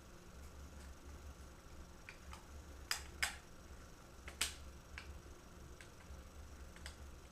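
Small sharp clicks and taps of the laptop's GPU board and surrounding parts being handled and fitted, with three louder clicks about three, three and a half and four and a half seconds in among a few fainter ones.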